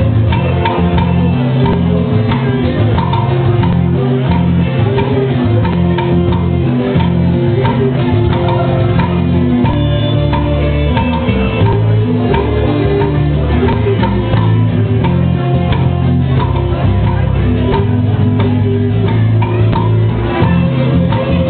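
Live rock band playing: electric guitar, acoustic guitar, bass guitar and drum kit, with a steady beat and held bass notes.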